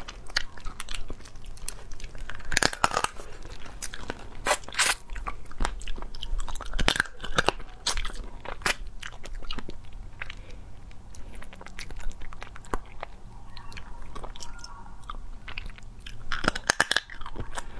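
Close-miked eating of small marinated crabs: irregular crunching and crackling snaps of shell being bitten, with chewing in between and louder bursts of crunching now and then, especially near the end.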